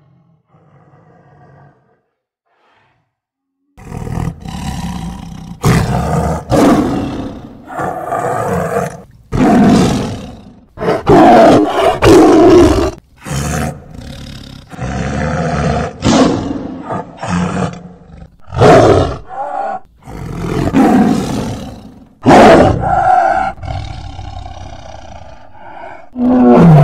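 Smilodon (saber-toothed cat) sound effect: a faint low growl, a short silence, then from about four seconds in a long run of loud big-cat roars and growls, one after another with short breaks between them.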